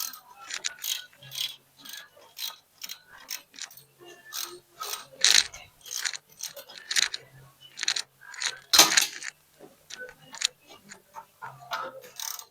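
Irregular metallic clicking and clanking of hand tools and parts being worked on a John Deere tractor transmission, with louder clanks about five and nine seconds in.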